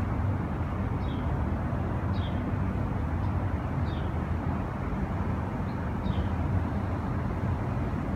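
Steady low rumble of wind on the microphone in a sandstorm, with a few faint, short high chirps.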